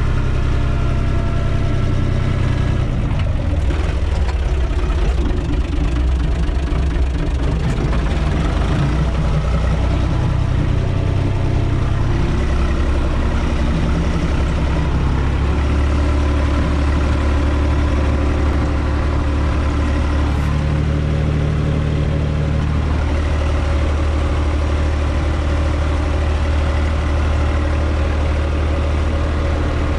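UTB 445 tractor's diesel engine running steadily, heard from inside its cab, with its pitch shifting slightly a few times.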